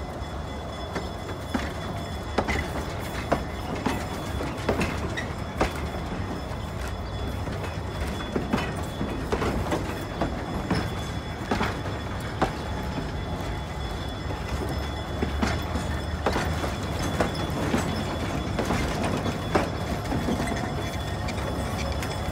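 East Broad Top narrow-gauge passenger cars, a wooden caboose and then open excursion cars, rolling slowly past: sharp wheel clicks over the rail joints about once a second over a steady low rumble.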